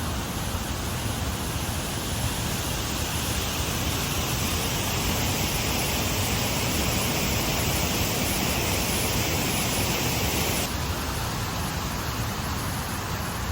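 Waterfall rushing: a steady, dense hiss of falling water, the falls running well after rain. About ten seconds in the higher part of the hiss drops away suddenly and the rush turns duller.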